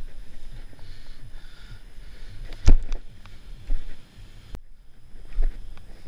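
Wind and movement rumble on a head-mounted action camera's microphone as the wearer moves across the course, with one sharp knock about two and a half seconds in.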